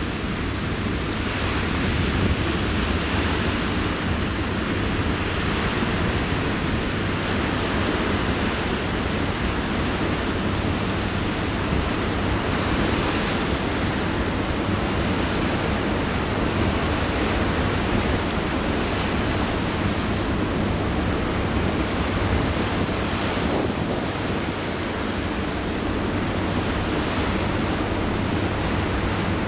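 Steady wind buffeting the microphone over a continuous rush of sea water, heard from the open deck of a ferry at sea.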